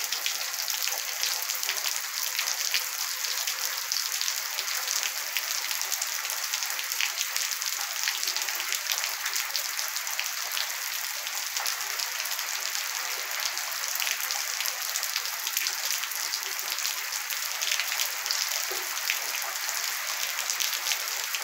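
Steady rain falling on wet ground and puddles: an even hiss with a dense patter of drops.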